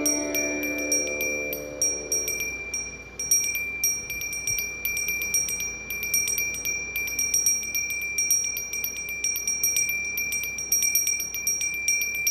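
A bell rung rapidly and unevenly, its strikes coming several times a second over a steady ringing tone. Held notes of devotional music fade out in the first couple of seconds.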